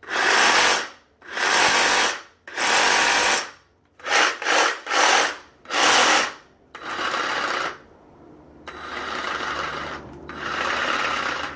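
Battery-powered reciprocating saw running unloaded in short bursts as the trigger is pulled and released again and again, about nine times. The later bursts are quieter and longer. It is a test run of the saw after it was rebuilt with new bearings, and it runs.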